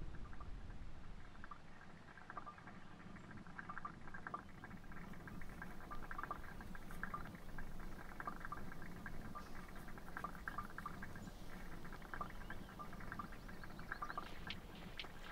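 Faint, irregular clicking and crackling of small stones and grit, turning denser and sharper near the end, over a low steady rumble.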